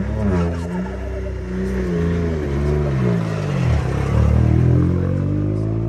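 Rally car engine running loud at close range, revved up and down several times, with the revs climbing and holding higher near the end.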